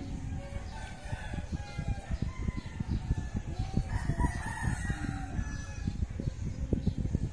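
A rooster crowing, loudest about four seconds in, with chickens clucking, over a low irregular rumbling.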